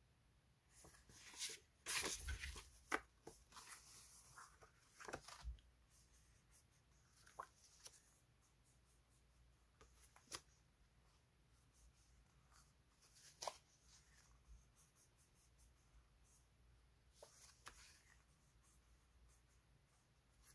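Faint rustling and light taps of paper sticker sheets being handled, shuffled and laid down, busiest in the first five seconds, then a few scattered soft ticks.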